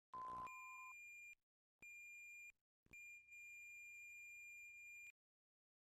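Faint steady electronic tones. A short lower beep comes at the start, then a higher pure tone sounds three times, each stopping abruptly; the third and longest runs about two seconds.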